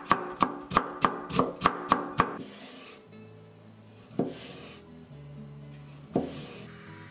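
Chef's knife julienning cucumber on a wooden cutting board, rapid chops about three or four a second that stop about two seconds in. Then the knife slices through a tomato, with two single cuts onto the board, over soft background music.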